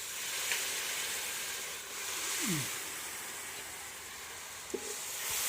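Spice masala in a hot pan sizzling with a steady hiss just after a little water has been poured in, the water boiling off as steam.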